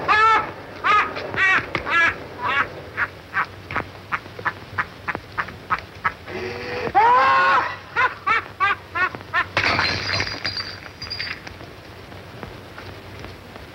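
A man's high-pitched comic crying: a long run of short whimpering sobs, quickening in the middle, with one longer drawn-out wail about six or seven seconds in.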